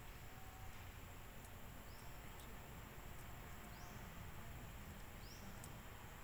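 Faint outdoor ambience: a steady thin high insect drone, with three short, faint rising chirps about a second and a half apart.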